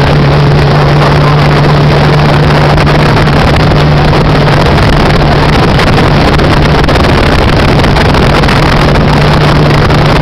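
Honda CBX 750's air-cooled inline-four engine running loud and steady through its exhaust, holding one even pitch with no revving.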